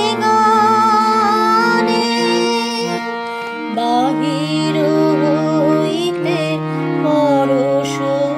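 A woman singing a slow Bengali devotional song, her melody wavering and gliding over steady held accompaniment notes.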